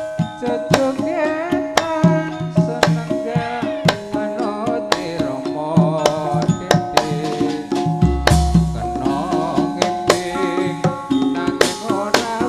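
Javanese gamelan music: quick hand-drum strokes over sustained metallophone notes, with a singer's wavering voice at times and a deep low boom about eight seconds in.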